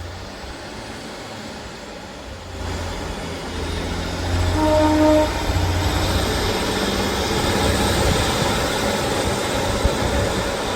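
A train running through the station, its noise building from about three seconds in and then holding steady, with a short horn note about halfway through.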